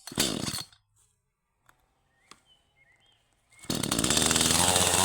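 Chainsaw switched on after a few seconds' pause, then running loudly and steadily, ready to cut up storm-felled wood.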